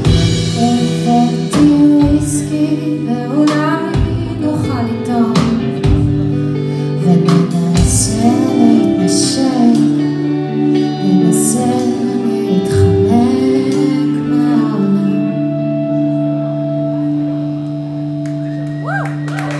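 Live rock band playing: a woman singing over electric guitar, bass, keyboard and drums. After about fourteen seconds the drums stop and the song winds down on a held chord.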